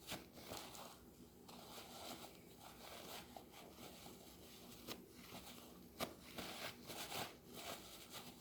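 Faint rustling and crinkling of hands being wiped clean, with a few soft clicks about five and six seconds in.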